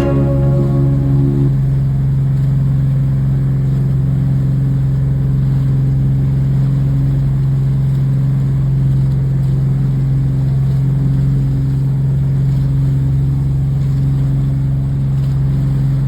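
An engine running steadily with a constant low hum, holding the same pitch and level throughout.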